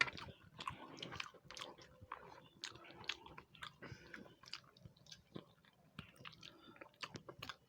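Soft, close-up chewing with wet mouth clicks and smacks, irregular and scattered, from people eating a meal.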